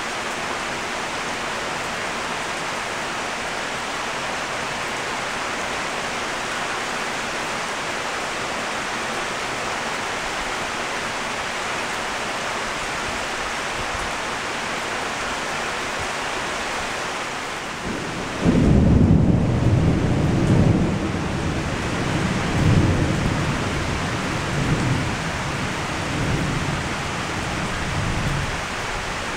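Steady heavy rain falling on leafy trees. About two-thirds of the way through, a loud clap of thunder breaks in and rolls on as a low rumble in several swells for about ten seconds, dying away under the rain.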